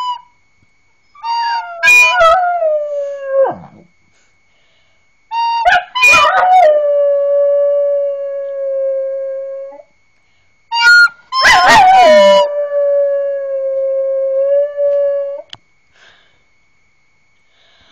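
A pet dog howling along with a recorder being played. Three howling phrases each open with short recorder-like notes, then the howl wavers and slides down into a long, steady held note.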